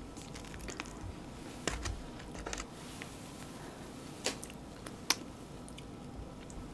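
A few scattered light clicks and taps from handling food: fingers pulling apart a tofu rice pocket over a foam takeout box and a spoon working in a bowl of sauce, the sharpest click about five seconds in.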